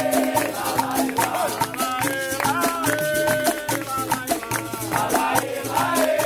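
Capoeira roda music: a berimbau with a caxixi rattle and an atabaque drum, with steady rhythmic hand clapping and a group of voices singing.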